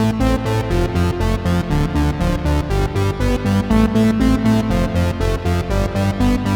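Roland Alpha Juno-1 synthesizer preset played through a Source Audio Nemesis delay pedal: a fast pulsing pattern of notes, about five a second, over a changing bass line, with a dance-music feel.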